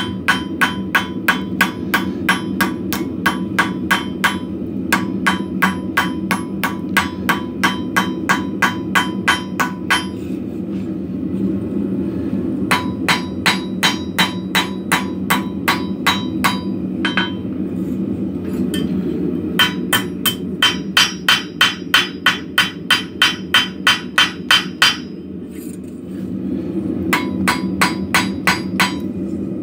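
Hammer blows on a plasma-cut metal forging blank on an anvil, texturing its sides: quick runs of about three ringing strikes a second, with short pauses between the runs.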